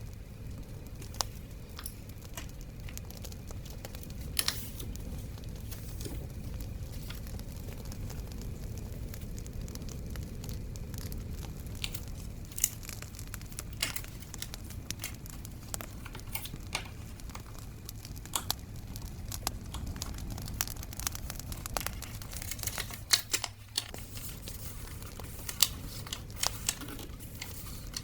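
Paper and scrapbooking materials being handled, crinkled and torn, with many scattered sharp crackles over a steady low rumbling background.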